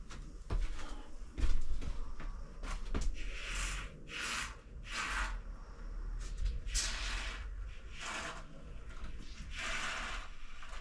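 Can of expanding foam gap filler hissing in about six short spurts as foam is sprayed into the gaps around a ceiling insulation panel. Before the spurts, a few knocks and one louder thump in the first three seconds.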